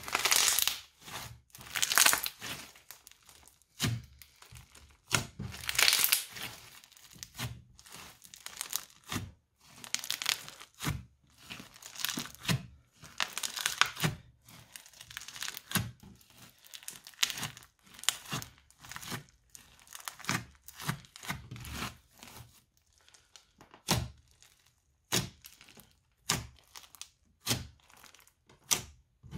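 Hands squishing, folding and poking crunchy slime packed with small beads, giving irregular bursts of crackling and crunching with short pauses between.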